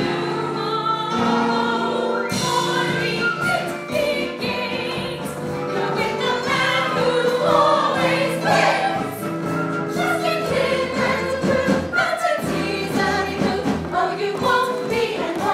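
Musical-theatre ensemble cast singing a chorus number together over instrumental accompaniment, in a large hall.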